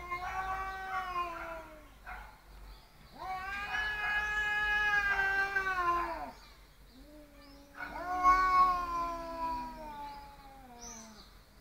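Two domestic cats yowling at each other in a standoff, the threat calls that come just before a fight: three long, drawn-out caterwauls, each falling in pitch at its end.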